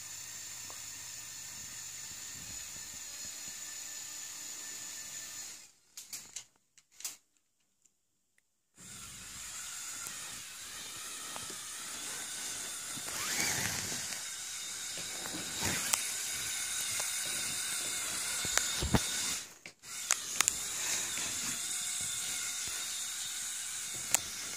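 Lego Technic 42009 Mobile Crane's small electric motor whirring through its plastic gearing, with clicking gears and a pitch that shifts a few times. The motor sound comes in about a third of the way in, after a steady hiss and a brief drop to near silence.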